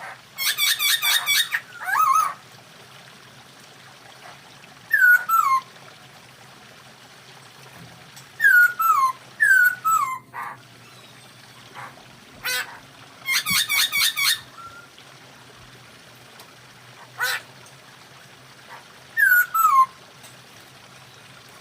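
Poksay hongkong laughingthrush calling in bouts: bursts of rapid repeated harsh notes and loud downslurred whistled notes, set off by a few sharp single chips. Between the bouts there are quiet gaps.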